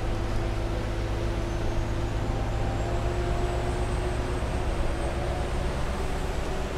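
Heuliez GX 317 GNV city bus's compressed-natural-gas engine running steadily with a constant drone. A faint high whine comes in about a second and a half in, rises slightly in pitch and fades out near the end.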